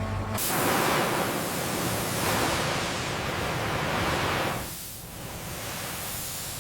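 A loud rushing hiss starts suddenly, swells twice and dies away after about four seconds.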